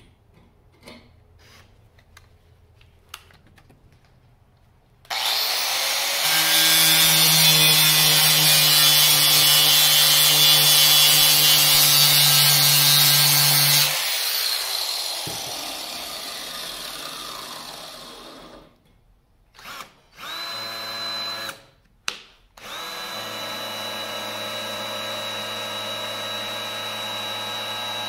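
Angle grinder running and grinding off a rusted weld-on nut for about nine seconds. It stops and winds down with a falling tone. Later a Ryobi cordless drill runs in a short burst and then a longer steady whir.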